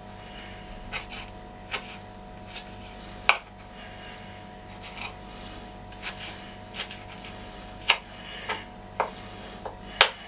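Knife cutting dried apricots on a wooden board: irregular sharp taps about once a second, a few of them louder, over a steady low hum.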